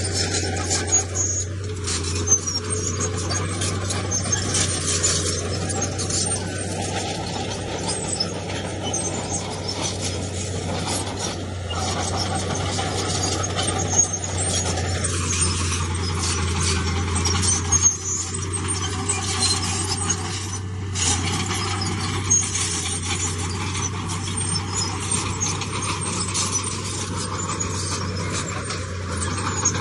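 Heavy earthmoving machinery at work: a diesel engine running steadily, with squealing and scattered metallic clicks over it.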